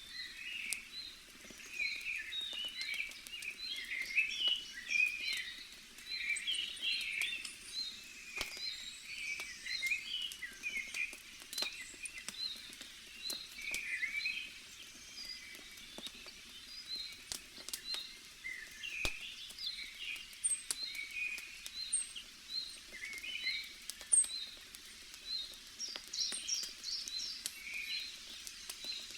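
Many small birds chirping and twittering, with one short high call repeating about once a second, over the faint snapping crackle of a campfire.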